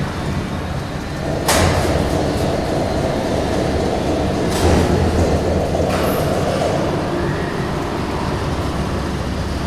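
Factory machinery running with a steady low hum. A sudden louder noisy surge starts about a second and a half in, and another comes about four and a half seconds in.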